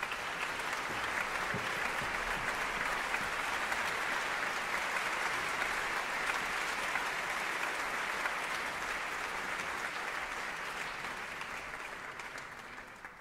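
Concert audience applauding steadily, the clapping dying away near the end as the pianist sits down at the piano.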